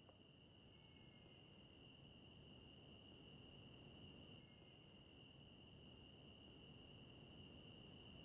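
Faint night insect chorus: a cricket trilling in one steady high note, with a second insect giving short regular chirps a little faster than once a second.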